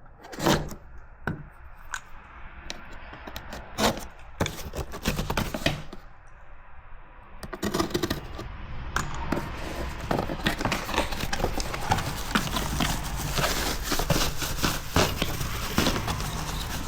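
Cardboard shipping box being handled and opened by hand: a few sharp knocks and scrapes, then from about eight seconds in a steady crinkling and rustling of the box and its packing.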